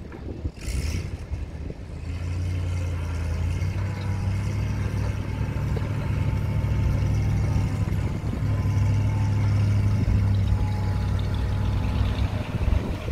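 A vehicle engine idling steadily, a low even hum that comes up about two seconds in and holds until near the end.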